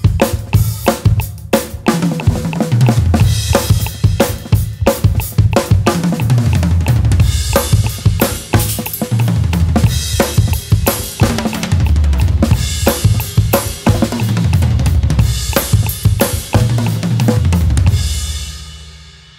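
Drum kit played fast: a left-hand-led three-note sticking in sixteenth notes at 180 beats per minute, moved around the snare, toms and cymbals over the bass drum. The playing stops near the end and the cymbals ring out and die away.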